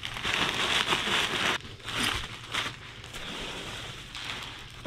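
Plastic bubble wrap crinkling and foam packing peanuts rustling as a bubble-wrapped motorcycle windshield is lifted out of a box full of peanuts. It is loudest in the first second and a half, comes again in a burst about two seconds in, then goes softer.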